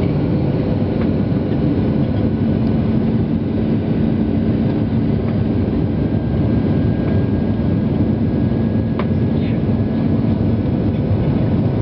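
Steady cabin noise of a Boeing 737-800 in flight: its CFM56-7B turbofan engines and the rush of air past the fuselage, with a faint steady low tone running through it.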